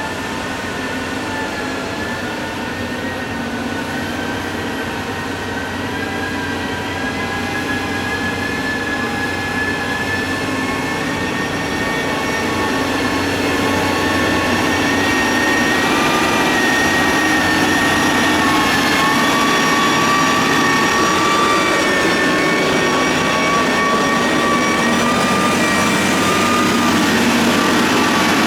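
Motor grader's diesel engine running under load with a steady high whine over its rumble, growing gradually louder.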